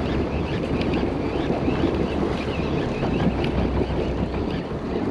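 Wind buffeting the microphone on a fishing boat at sea, with water washing around the hull and a steady low hum underneath.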